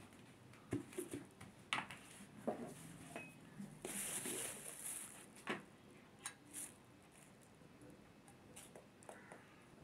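Faint, scattered light clicks and knocks with a brief rustle about four seconds in: small kitchen utensils and containers being handled off to the side.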